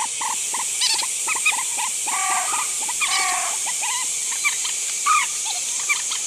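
Rail-family marsh birds (trích ré) calling: a rapid run of short, high call notes, some rising, over a steady hiss.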